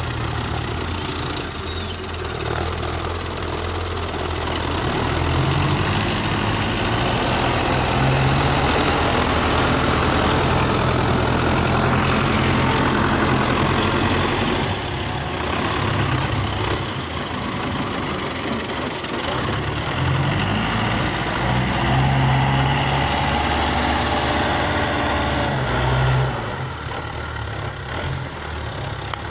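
Belarus tractor's diesel engine working under load as the tractor pushes soil up a bank with its front blade. The engine note rises and falls with the load and eases off sharply near the end.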